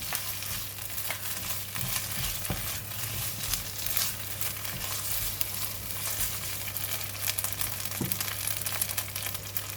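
Thai eggplant pieces frying in hot oil and red curry paste in a pan, a steady sizzle with many small crackles of spattering oil.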